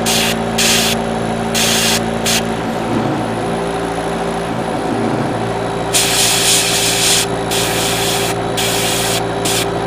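Paint sprayer hissing in short on-off bursts, with a longer burst a little past the middle, over the steady hum of an air compressor motor.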